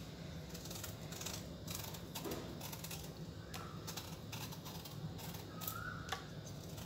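Kitchen knife scraping and shaving the skin off a ridge gourd by hand: a run of short, uneven scraping strokes.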